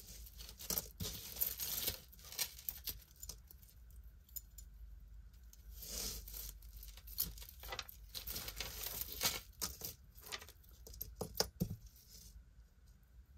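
Costume jewelry being handled and sorted: scattered soft clicks and clinks of beads and chain, with rustling.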